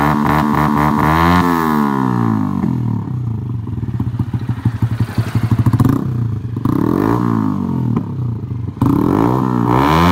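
125 cc motorcycle with a newly fitted aftermarket exhaust, its engine blipped from idle: the exhaust note rises and falls sharply three times, near the start, about seven seconds in and near the end, with an uneven, choppy idle between the revs.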